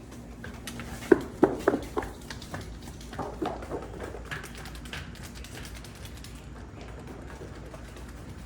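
Hooves clattering on a hard barn floor as farm animals trot in: a quick run of sharp knocks about a second in, then scattered lighter taps.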